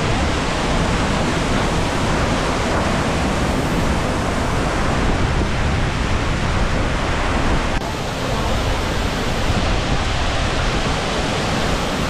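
Large waterfall crashing onto rocks, a loud steady rushing roar of falling water and spray, with a slight drop in level about eight seconds in.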